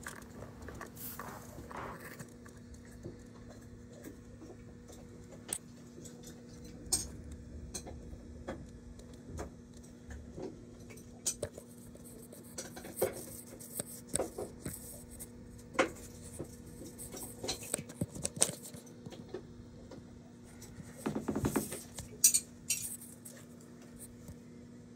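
Scattered light metallic clinks and taps, like tools and parts being handled, with a steady low hum underneath. A brief louder clatter comes near the end.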